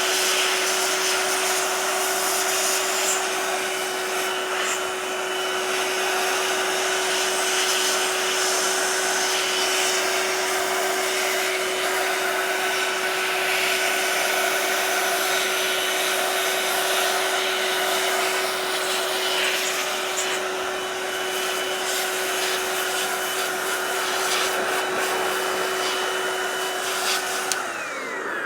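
Electric air blower running steadily with a whine, blowing dust and leftover cleaning alcohol out of an opened laptop. Near the end it switches off and its motor winds down, falling in pitch.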